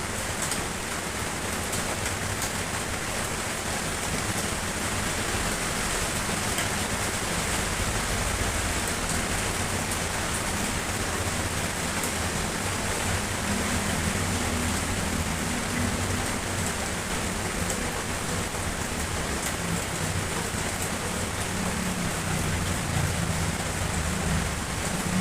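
Steady rainfall, an even hiss of falling rain, with a low rumble coming in beneath it about halfway through.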